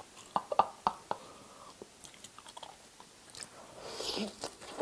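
Close-miked chewing of crispy fried cheese pork cutlet, with a run of sharp crunchy clicks in the first second, then a fresh crunching bite into the breaded crust about four seconds in.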